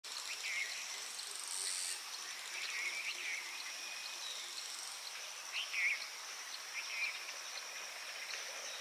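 Short, sharp bird calls, about five scattered through, over a steady high-pitched insect drone.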